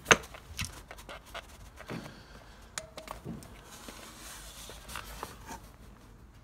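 Clicks and knocks from the folding stem and clip of an e-Twow S2 electric scooter being worked by hand as the stem is clipped into place, a sharp click right at the start the loudest, then several lighter knocks.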